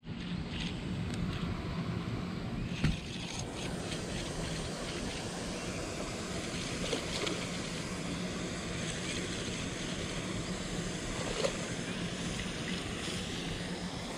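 Spinning reel being cranked and a hooked largemouth bass splashing at the surface as it is reeled to the bank, over a steady rushing noise with a low hum. There is a sharp click about three seconds in.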